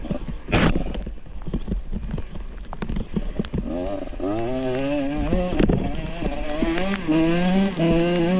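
Dirt bike engine under a rider off-road, revving up and down over and over from about four seconds in. Frequent knocks and clatters run throughout, with a sharp loud knock about half a second in.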